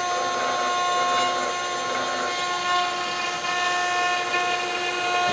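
Spindle of a Chinese CNC router running with a steady whine while a small ball-nose bit cuts a finishing pass in wood at a raised feed rate.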